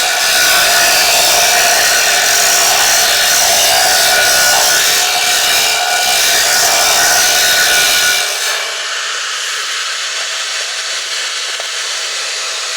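A power tool running continuously: a loud, steady, harsh hiss with a few steady tones in it. About 8 seconds in it becomes slightly quieter and loses its low end.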